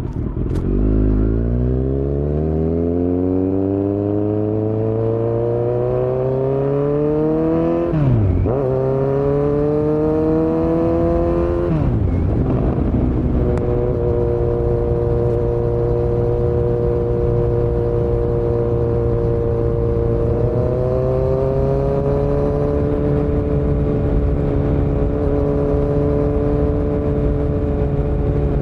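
2018 Kawasaki Z900's inline-four engine breathing through a Yoshimura muffler and Delkevic headers with no dB killer. It accelerates hard with the pitch climbing, and there are two upshifts where the note drops sharply, about 8 and 12 seconds in. It then runs at a steady, even pitch while cruising, lifting slightly once a little over halfway through.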